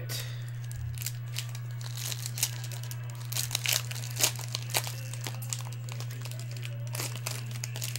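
Foil trading-card pack being crinkled and torn open by hand: irregular crackling and tearing, busiest in the middle.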